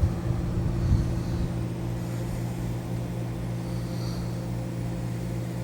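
1964–65 Fedders 8,000 BTU Weather Wheel air conditioner running: a steady mechanical hum from the compressor with the fan's air rushing over it.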